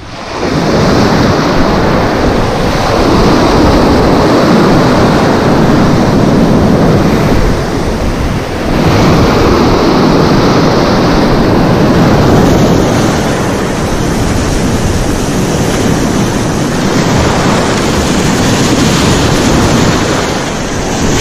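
Sea surf breaking and washing in foam over the shoreline rocks close by, loud and continuous, with a brief lull about eight seconds in before the next wave surges.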